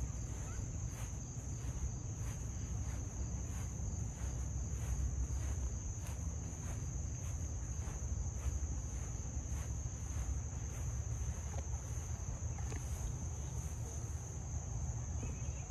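Crickets trilling steadily at a high pitch, with soft regular footsteps on grass about twice a second and a low rumble underneath.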